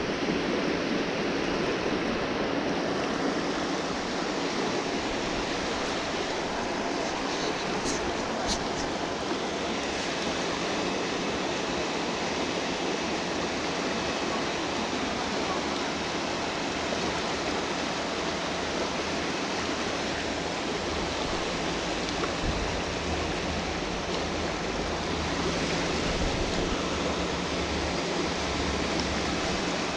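Steady rush of flowing water in a Lake Ontario tributary creek.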